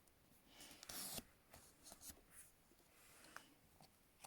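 Faint rustling and creasing of a Post-it note being folded in half, with a few small paper crinkles and ticks; the loudest rustle comes about a second in.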